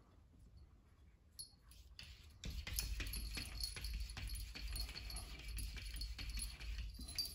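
A cat pawing and scrabbling at a glass door, a dense run of rapid scratchy clicks that starts about two and a half seconds in, with light jingling from its collar.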